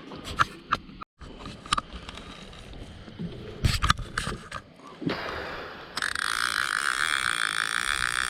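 A few knocks and clicks of handling on the boat, then about six seconds in a fishing reel's line clicker starts buzzing loudly and steadily as a fish takes the bait and runs with the line.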